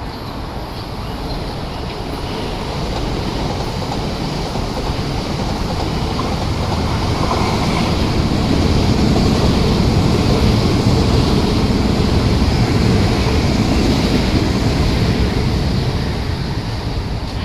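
MTR East Rail line R-Train electric trains passing, a rumble that builds over about eight seconds, holds loud, then eases off near the end.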